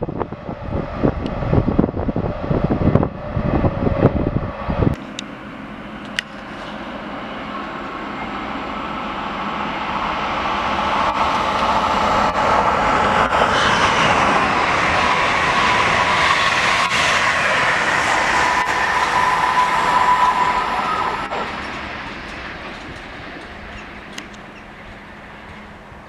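Container freight wagons rumbling and clattering on the rails, stopping abruptly about five seconds in. Then an SJ X2000 high-speed electric train passes at speed: its rushing noise builds, holds for several seconds with a steady whine, and fades away.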